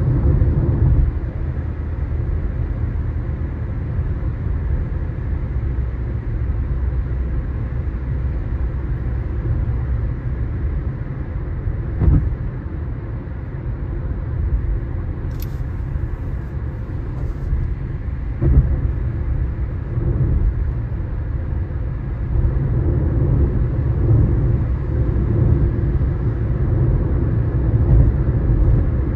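Car driving, heard from inside the cabin: a steady low rumble of engine and tyre noise, with two short knocks partway through.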